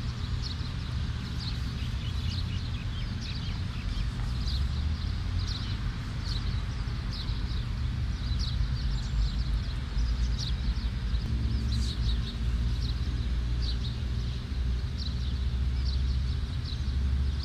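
A bird chirping in short high notes, roughly once a second, over a steady low rumble. A faint steady hum joins about eleven seconds in.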